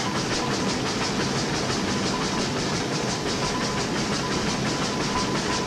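Fowler steam ploughing engine working, a steady hiss of steam with a fast, even exhaust beat of about four to five strokes a second.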